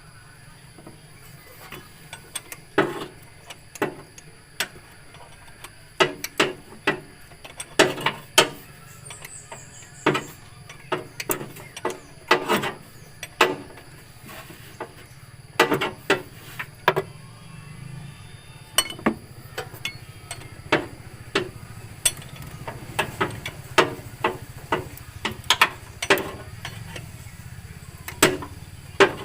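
Hand tools clicking and clinking against metal in irregular sharp strokes, sometimes several in quick succession, over a steady low hum.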